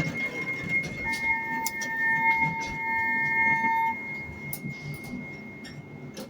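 Electronic alarm tones: a steady high-pitched tone sounds throughout, joined about a second in by a lower steady tone that holds for about three seconds and then stops, over scattered knocks and a low rumble.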